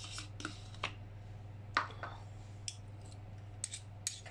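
A metal spoon scraping and tapping against a plastic cheese tub, in a few scattered clicks and scrapes, over a steady low hum.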